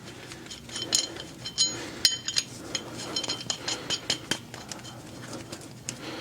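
Steel lug nut clinking and rattling as it is handled and spun by hand onto a wheel stud of a brand-new hub assembly: a series of sharp, ringing metal clinks, most of them in the first half, then lighter ticks.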